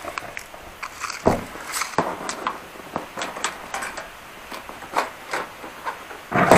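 Light clicks and knocks, a few of them louder, from a tape measure being pulled out and handled against a car's roof.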